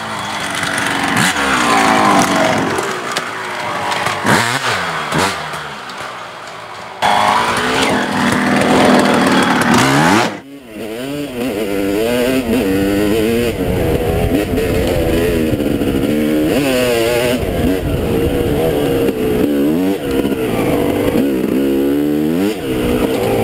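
Dirt bike engine revving up and down as the bike rides through the woods. After an abrupt change about ten seconds in, it is heard from on board: the engine runs up and down through the gears at speed, with a low rush under it.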